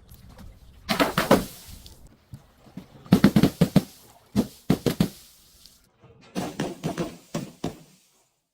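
Objects being crushed: four clusters of quick, sharp cracking and crunching, about a second in, at three seconds, around four and a half seconds, and a longer run near the end.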